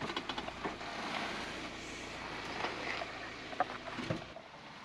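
Suzuki Jimny engine running low as it crawls along the track, with scattered clicks and crunches close by; the engine hum fades out near the end.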